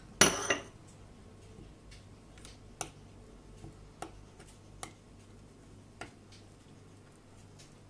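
Metal spoon stirring a thick paste in a small glass bowl: a louder clatter just after the start, then sparse light clicks of the spoon against the glass, about one a second.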